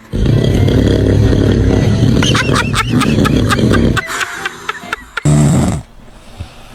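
A man snoring loudly in one long rasping snore, with a baby's short high-pitched squeals over it partway through. The snore breaks off about four seconds in, and one more short loud snort follows over a second later.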